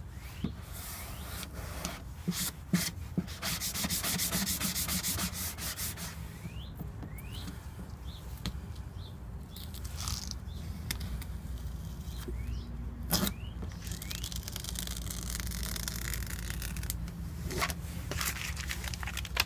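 A squeegee and paper rubbing over a vinyl decal's transfer tape on a golf cart's glossy plastic body in repeated scraping strokes, with paper crinkling and tape being peeled away. A few short rising squeaks and small clicks.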